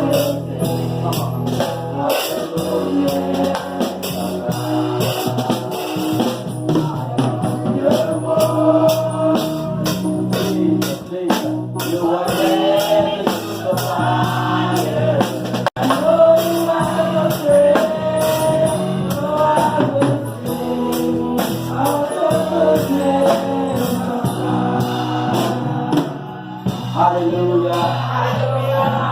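Gospel worship music with singing over a drum kit, guitar and a steady bass line.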